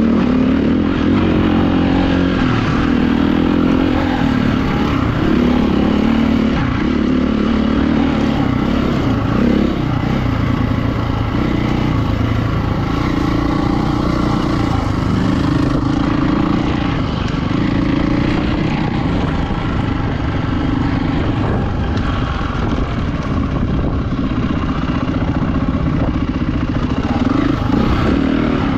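Enduro motorcycle engine ridden off-road, the engine pitch rising and falling over and over as the throttle is opened and closed.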